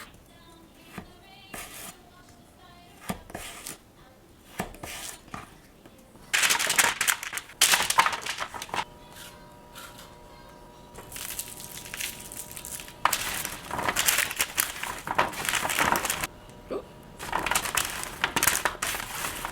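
Kitchen preparation sounds: scattered clicks and clinks of dishes and utensils, then several loud stretches of rustling noise, with faint music at times.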